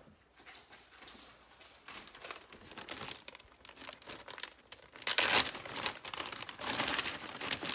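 Plastic freezer bag crinkling as frozen onion skins and vegetable scraps are shaken out of it into a stainless steel stockpot. The loudest bursts come about five seconds in and again around seven seconds in.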